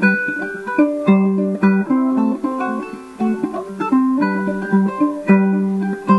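Ukulele played solo, a run of plucked melody notes over chords with no singing.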